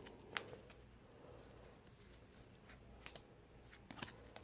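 Near silence with a few faint, short clicks and light rustling of trading cards being handled and sorted.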